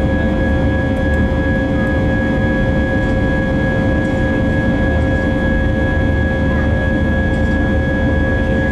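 Airbus A320's IAE V2500 turbofan engines running at climb power, heard inside the cabin as a steady low rumble with two held whining tones.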